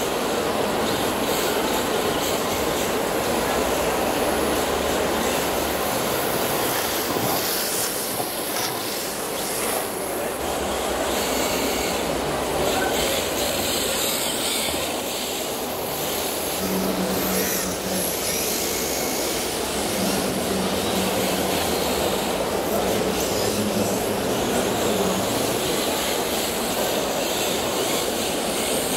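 Steady din of a busy indoor exhibition hall, a continuous wash of crowd and machine noise with no pauses.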